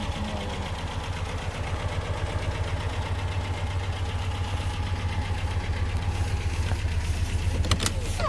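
Fiat 125p's 1.3-litre four-cylinder engine idling steadily with an even low pulse, with a few short clicks near the end.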